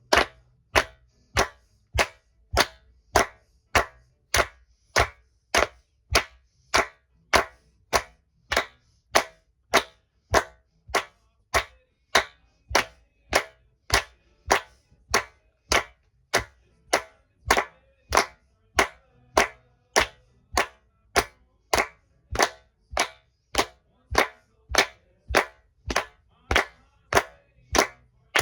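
A steady beat of single sharp clicks, about two a second (roughly 105 a minute), evenly spaced and of nearly equal loudness, keeping time for a recording take.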